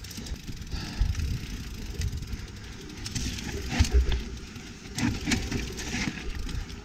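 YT Capra full-suspension mountain bike descending a rough trail: tyres rumbling over dirt and roots, with irregular knocks and rattles from the chain and frame over the bumps.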